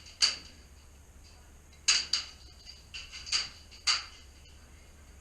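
Airsoft BBs striking metal cover: about six sharp metallic pings at irregular intervals, each with a short ring.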